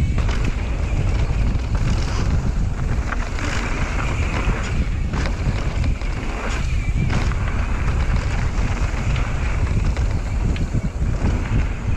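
Wind rushing and buffeting over a GoPro Hero 8 microphone on a mountain bike riding down a dirt trail, mixed with tyre noise on the dirt and short clatters of the bike over bumps.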